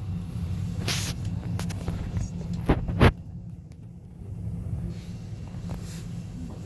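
ES2G electric train running, heard as a steady low rumble, with a short hiss about a second in and two sharp knocks close together near the middle.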